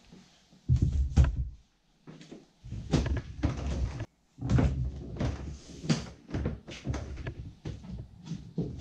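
Irregular thuds, knocks and scrapes of a plastic sit-on-top kayak on a concrete floor as a person climbs in and settles into the seat.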